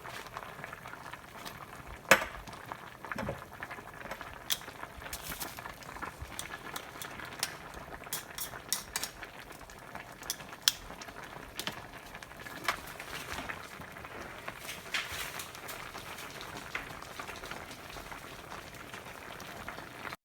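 Pot of budae-jjigae (Korean army stew) bubbling at a boil, with a steady hiss and scattered sharp clicks and clinks of utensils against the pot, the loudest about two seconds in.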